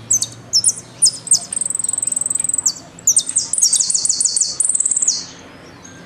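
Argentine jilguero (saffron finch) singing. A run of sharp, high falling notes leads into fast, high trills, then a second run of quick notes and a trill, and the song stops about five seconds in.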